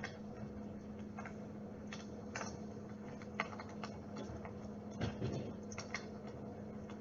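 Dimplex water-mist flame-effect unit running with a steady low hum, over which come scattered, irregular faint clicks and ticks.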